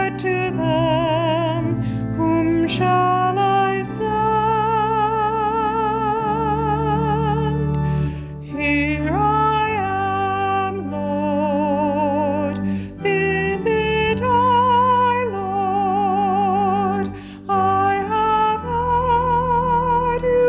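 A woman singing solo with a wide vibrato, holding long notes over sustained accompaniment chords.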